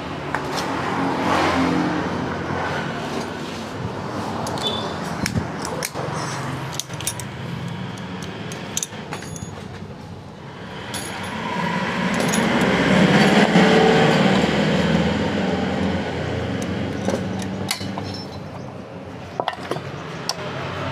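Passing road traffic, with one motor vehicle swelling up and fading away about halfway through, and scattered light metallic clinks of small metal parts being handled.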